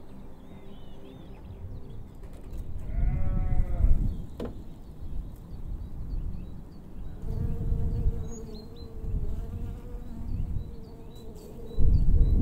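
Sheep bleating: a short wavering bleat about three seconds in and a longer, steadier one around eight seconds in, with small birds chirping and a low rumble that swells near the end.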